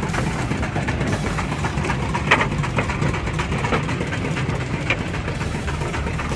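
Fishing boat's engine running steadily at a low idle, with a couple of short sharp knocks.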